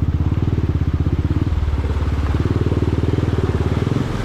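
Motorcycle engine running under load on a rough track, a fast even firing pulse whose note shifts about one and a half seconds in and again near the end.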